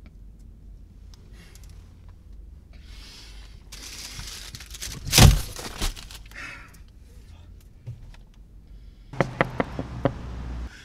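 Low steady rumble inside a car, broken about five seconds in by a rush of noise that ends in one loud sudden thump. Near the end, a quick run of sharp knocks on the car's side window.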